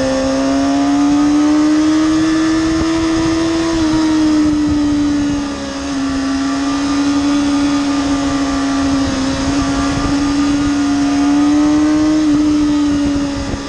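2007 Kawasaki ZX6R inline-four sport bike engine with a Two Brothers slip-on exhaust, run hard at high revs. The pitch climbs slowly, eases off, holds, then climbs again, with a brief dip in loudness as the throttle comes off around the middle.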